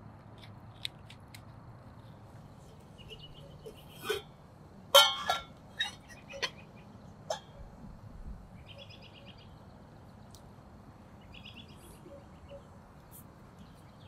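Birds singing outdoors in short trilled phrases, over a faint steady background. A few pops from a small crackling wood fire come early, and a short run of louder sharp calls or knocks comes in the middle, the loudest sounds here.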